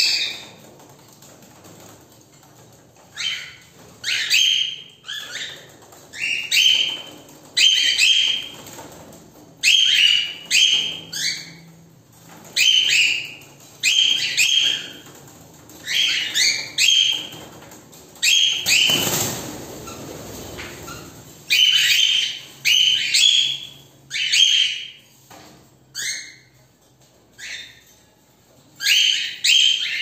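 Cockatiels calling over and over with short, sharp, high calls, mostly in twos or threes a second or two apart. A burst of rustling noise about a second and a half long comes a little past halfway.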